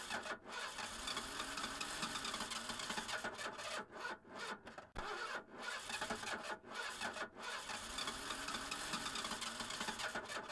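Car engine being cranked by its starter without catching, a rasping, grinding noise broken by short pauses.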